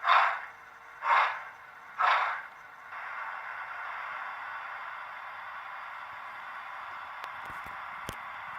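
Hornby TTS sound decoder in a model West Country steam locomotive playing steam sounds: three loud chuffs about a second apart, then a steady steam hiss. A few sharp clicks come near the end.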